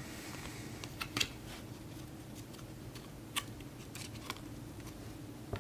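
Trading cards being handled and flipped: a few faint, short clicks and slides of card stock over a low steady hum.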